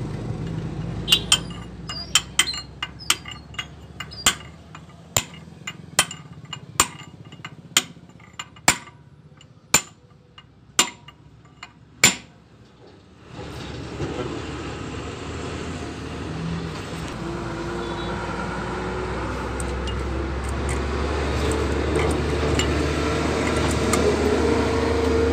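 Metal-on-metal hammer taps, about fifteen sharp ringing strikes roughly a second apart, on a drift held against the rotavator gearbox shaft while its bearing is being driven. The strikes stop after about 12 seconds and a steady low background rumble takes over.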